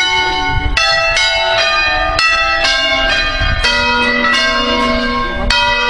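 A concerto of five hand-rung church bells tuned in B, the swinging bells striking one after another about twice a second, each strike ringing on over the others. A deep low bell joins about halfway through.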